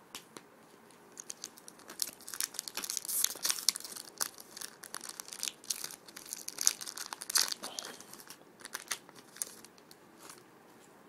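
Crinkling and tearing of a foil trading-card pack wrapper as it is ripped open and handled: a dense run of sharp, irregular crackles that thins out near the end.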